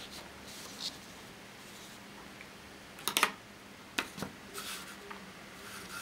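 Plastic ruler and sheet of paper being handled on a desk: a few soft clicks and taps about three and four seconds in as the ruler is picked up and laid on the paper, with light paper rustling over a faint steady hum.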